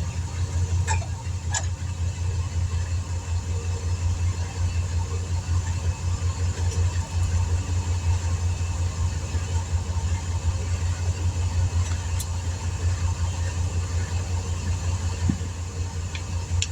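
An engine idling steadily with a low, even hum, with a few faint light clicks.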